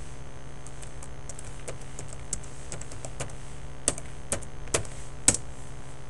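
Computer keyboard being typed on as a password is entered: a string of irregular key clicks, the louder ones coming near the end and the sharpest about five seconds in.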